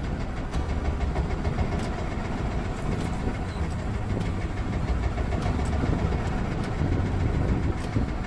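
A boat's engine running steadily with a low hum.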